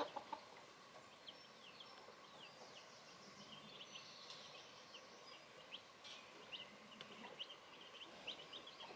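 Baby chicks peeping faintly: many short, high chirps, scattered and overlapping.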